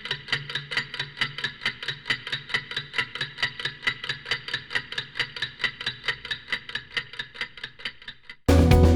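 Clock ticking quickly and evenly, about four ticks a second. Near the end the ticking stops and loud guitar music cuts in abruptly.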